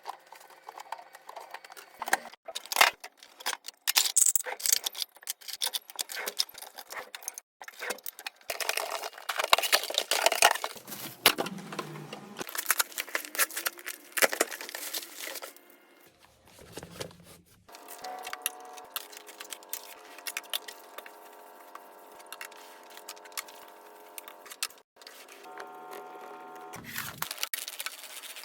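Household cleaning and tidying sounds: a busy run of clicks, knocks, scrapes and small rattles of objects being handled, then a steady hum with several held tones for the last third.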